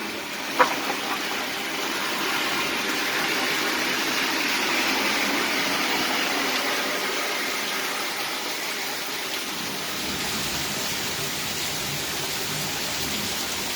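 Steady heavy rain, with a car's tyres hissing on the wet road as it passes, the sound swelling over a few seconds and then fading back into the rain.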